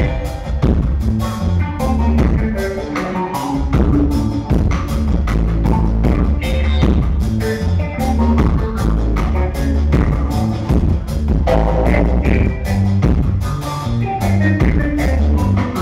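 Live instrumental dub reggae played by a band: a loud, heavy electric bass line over drum kit beats, with keyboard and guitar parts.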